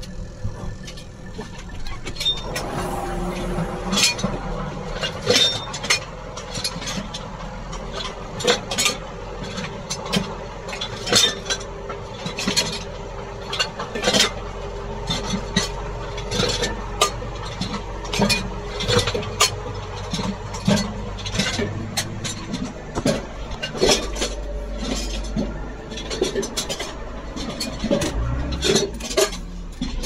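New Holland TM140 tractor engine running, heard from inside the cab while it drives over the field, with frequent irregular clinks and rattles from loose cab fittings and equipment jolting.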